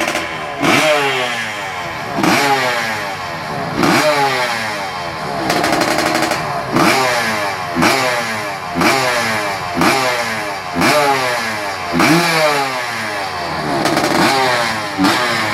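Trail motorcycle engine revved again and again, the throttle blipped about once a second so that each rev rises sharply and falls back.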